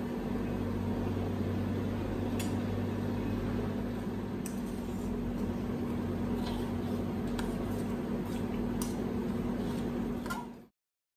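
Steady mechanical hum with a low, even tone, with a few faint light clicks of a spoon against a stainless steel bowl as a paste is stirred. The sound cuts off abruptly near the end.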